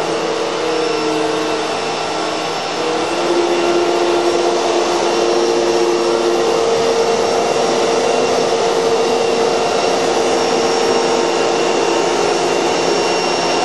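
Household vacuum cleaner running steadily, its motor hum shifting a little in pitch and getting slightly louder about three seconds in.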